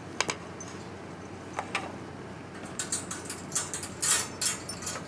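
Wire cat-cage door and the short metal chain hanging from it clinking and rattling as the door is handled: a couple of sharp clicks, then a run of quick metallic jingles over the last couple of seconds.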